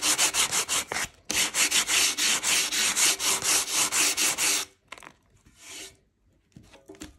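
240-grit sandpaper rubbed by hand over a textured chalk-paint finish in quick back-and-forth strokes, about five a second, lightly sanding down the raised peaks. It pauses briefly about a second in and stops a little over four and a half seconds in.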